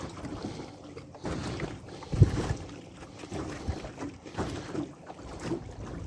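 Water lapping and slapping against the hull of a small fishing boat, with wind on the microphone and a low knock about two seconds in.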